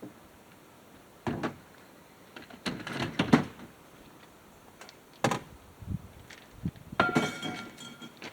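Scattered knocks and clatter of objects being handled, ending in a louder metallic clang that rings briefly.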